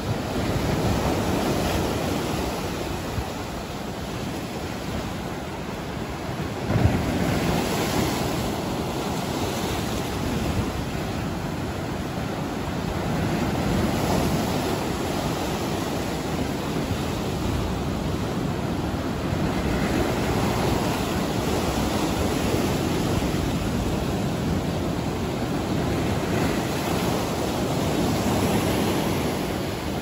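Surf breaking over rocks and washing up a sandy beach: a continuous rush that swells and eases with each wave. Wind buffets the microphone, with one sharp louder burst about seven seconds in.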